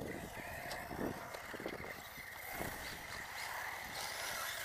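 Electric off-road RC buggies racing: a steady high motor whine that wavers as they speed up and slow down, with scattered clicks and knocks.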